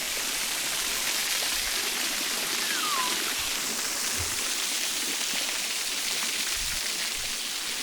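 Waterfall pouring steadily, an even rushing hiss of falling water.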